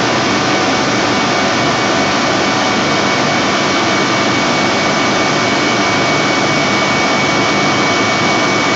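Large industrial turbocompressor, driven by a 1300 kW 6 kV induction motor, running steadily: a loud, even rush of air with a steady high whine over it.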